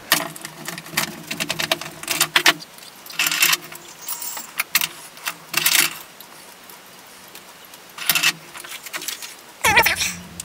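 Small metal bench vise and tools clinking and rattling in several short bursts as they are handled, with a heavier thump near the end.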